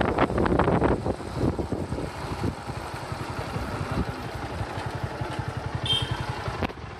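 Motorcycle engine running steadily while riding, with even, rapid firing pulses. Wind buffets the microphone in the first second or so.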